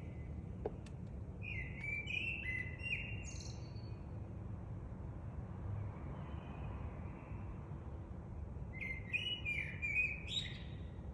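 A songbird singing two warbled phrases, one about a second and a half in and another near the end, each ending in higher squeaky notes, over a steady low rumble of wind.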